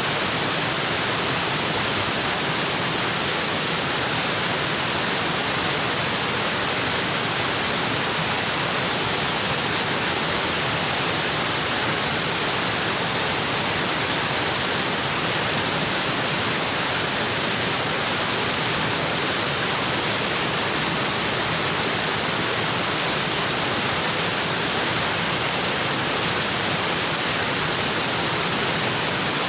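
Waterfall in a tropical forest, its water falling onto rocks in a steady, unbroken rush.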